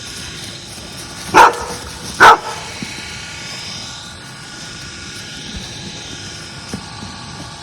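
A dog barks twice, a little under a second apart, over steady background noise.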